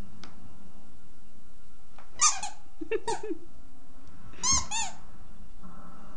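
Squeaky dog toy squeaking as a dog bites and squeezes it, in short runs of quick squeaks: one about two seconds in, another about three seconds in, and two more around four and a half seconds in.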